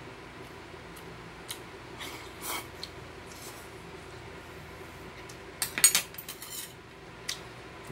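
Metal spoon clinking and scraping against a ceramic rice bowl while eating, with a short burst of louder clattering about six seconds in.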